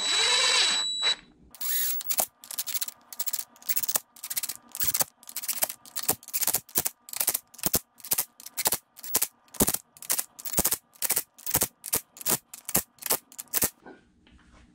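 Hand ratchet clicking in short, even strokes, about two or three a second for some twelve seconds, as it runs down the front pump bolts of a 4L60E transmission. A short hiss comes in the first second, before the clicking starts.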